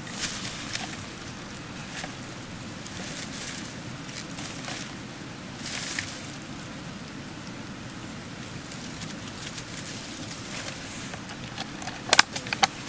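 Dry bamboo leaves rustling and crackling as hands search through the leaf litter, over a steady low background noise. About twelve seconds in, a clear plastic bottle is handled, giving a burst of sharp crinkling clicks, the loudest sound here.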